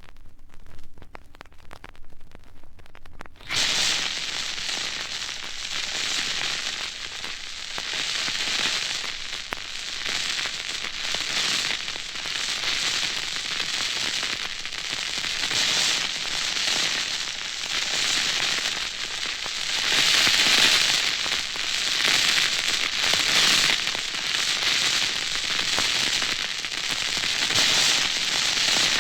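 A record's quiet groove with faint surface clicks gives way suddenly, about three and a half seconds in, to a loud, dense crackling and hissing sound effect that swells and ebbs.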